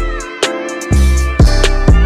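Background music with a steady beat: a drum hit about twice a second over a deep bass line and held chords.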